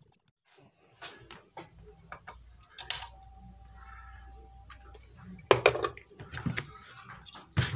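Small hard objects and tools clicking and clattering on a workbench during circuit-board repair, with sharper knocks about three seconds in and again near the end. A faint steady tone sounds for about two seconds in the middle.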